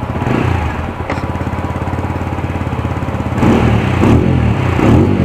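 TVS Apache RTR 200 4V's single-cylinder 200 cc four-stroke engine idling through its stock exhaust. It is revved briefly about half a second in, then blipped three times in the last two seconds.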